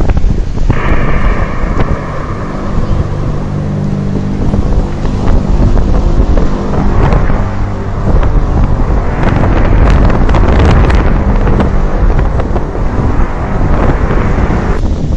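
Heavy wind buffeting the microphone, with a low steady hum of several tones under it for most of the stretch and a higher drawn-out tone briefly about a second in.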